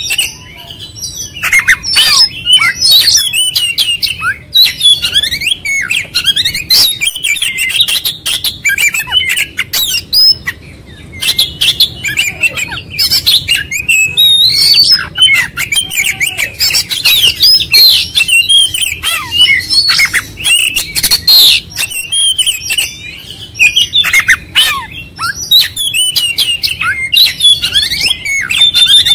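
Oriental magpie-robin singing loudly and almost without a break: a rapid stream of varied whistles, chatters and sharp clicking notes as it runs through its repertoire. There is a short lull about a second in.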